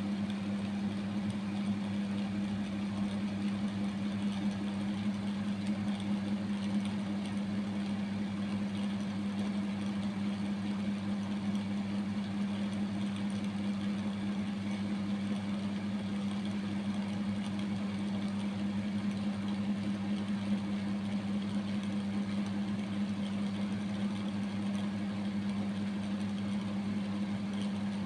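A steady low hum that holds one even pitch without changing.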